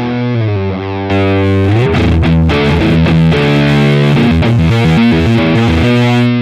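Electric guitar played through a clean boost pedal into a drive pedal, giving a saturated, distorted tone. Sustained chords and notes, with a slide down in pitch and back up in the first two seconds. The tone gets louder and brighter about a second in.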